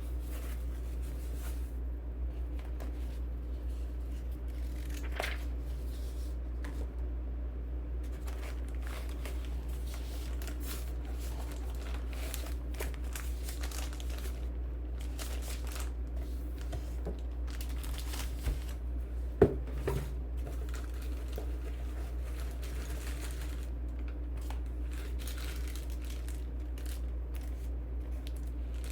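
Keyboard packaging being handled and unwrapped: irregular crinkling and rustling, with one sharp knock about two-thirds of the way through.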